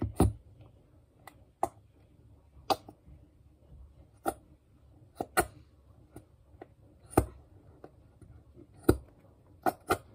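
Small plastic squeeze bottle being squeezed by hand, giving sharp, irregular clicks and crackles roughly once a second, coming closer together near the end.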